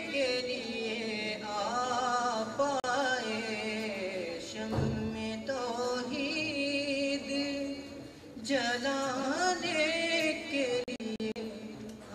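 A man's solo voice reciting a naat, a devotional Urdu poem in praise of the Prophet, in long ornamented melodic lines with wavering pitch over a steady low hum.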